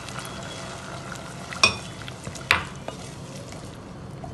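Wooden spatula stirring sautéed vegetables and a cornflour slurry in a pot on the heat, with a steady sizzle. Two sharp knocks, a little under a second apart, come near the middle. The slurry is stirred in as it goes in so it thickens the gravy without lumps.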